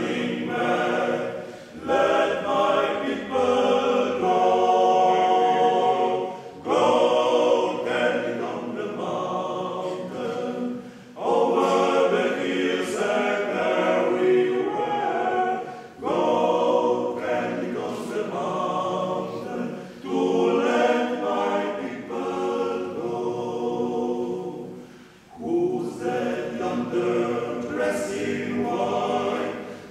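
Male vocal octet singing a cappella in a church, several male voices in harmony. The singing comes in phrases a few seconds long, with brief breaks between them.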